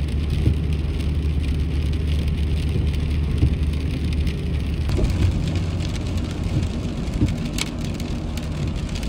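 Inside a pickup truck's cab on a wet highway: a steady low drone of engine and tyres, with the hiss of rain and tyre spray.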